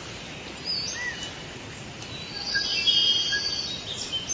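Forest ambience of assorted bird calls, short chirps and whistles over a steady hiss, loudest about three seconds in.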